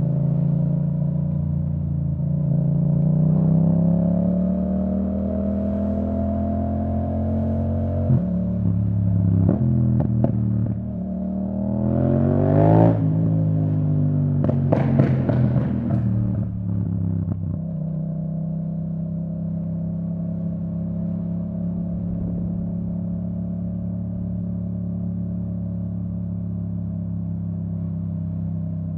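2017 Yamaha MT-07's parallel-twin engine through an Akrapovic full titanium exhaust with the dB killer out. Its note climbs under acceleration and steps down about eight seconds in. Around the middle the revs fall with a run of sharp crackles and pops from the exhaust, and the engine then settles to a steady note.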